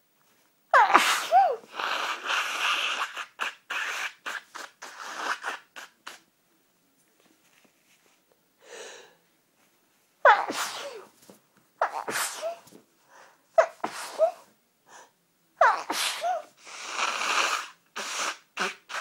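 A person sneezing several times: one sneeze about a second in, then a run of sneezes from about ten to sixteen seconds in. Each sneeze starts with a sharp vocal burst that falls in pitch and trails off into rough, rushing breath noise.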